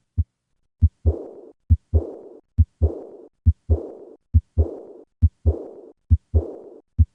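Heartbeat at about 70 beats a minute, each beat a pair of short thumps (first and second heart sounds). From about a second in, each second sound is followed by a decrescendo diastolic murmur that fades over about half a second, the murmur typical of aortic regurgitation.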